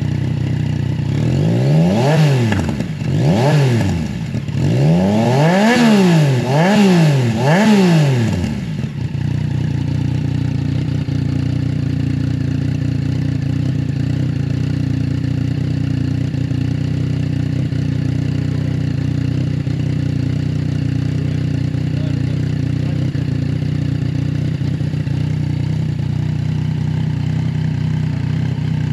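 Yamaha Tracer 9's three-cylinder engine through a Roadsitalia Power Carbon aftermarket exhaust on a cold start: about five quick throttle blips, each revving up and falling back, then from about nine seconds in the engine idles steadily.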